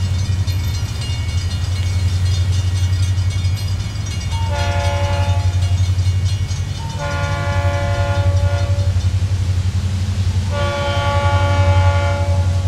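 An approaching diesel locomotive's multi-note air horn blowing three long blasts, the third the longest, as it nears a grade crossing, over a steady low rumble.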